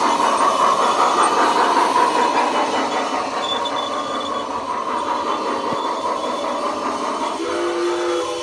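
Eztec G-gauge toy steam locomotive running on plastic track, a steady rattling run with a faint regular pulse. About seven seconds in, its sound unit starts a whistle made of several steady tones.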